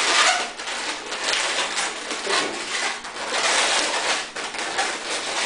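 Latex modelling balloons squeaking and rubbing against each other as they are twisted and joined by hand, in irregular surges.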